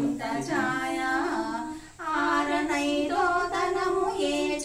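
Women's voices singing a slow song without instruments, with long held, wavering notes and a short breath break about two seconds in.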